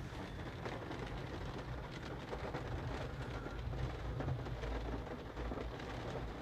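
Heavy rain pattering and drumming on a car's roof and windshield, heard from inside the cabin as a steady hiss of many small ticks over a low rumble.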